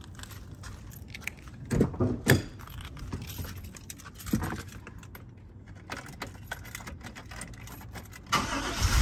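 Keys jangling with a few knocks and rattles, then near the end the GMC Yukon's engine cranks and starts and settles into running. The owner believes this engine has a vacuum leak.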